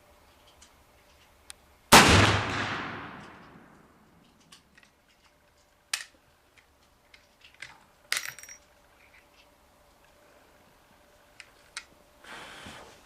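A single rifle shot from a Werndl M1873/77 single-shot rifle about two seconds in, its report dying away over about two seconds. It is followed by a few sharp metallic clicks and a brief ringing metallic clatter.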